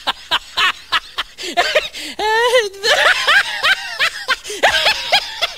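Loud, hearty laughter in quick repeated bursts, with a long wavering, warbling laugh about two seconds in: a comic laugh sound effect.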